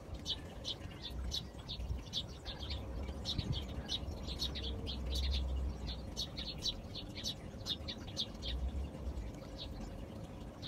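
Birds chirping: many short, high chirps in quick succession, over a low rumble.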